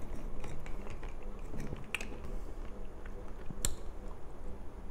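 Close-miked chewing of a raw oyster: soft, wet mouth sounds with a few small clicks, the sharpest about three and a half seconds in.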